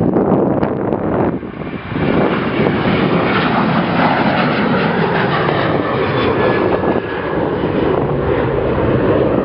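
Boeing 737-800's CFM56-7B turbofan engines at takeoff thrust: a loud, steady jet roar that builds in about two seconds in and holds. Wind buffets the microphone at the start.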